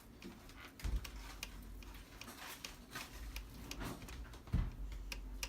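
Light, irregular clicking and ticking of hand work on the sewing machine's parts, with two dull knocks, one about a second in and one about a second before the end.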